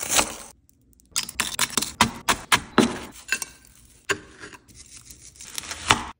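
Serrated knife cutting through a brittle freeze-dried candy shell: a quick run of sharp crackles and crunches, starting about a second in after a short pause.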